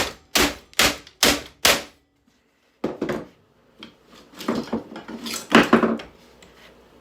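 Hammer striking a plastic boombox casing: five quick blows about two a second, then, after a short silence, a run of irregular knocks and clatter as the housing is worked apart.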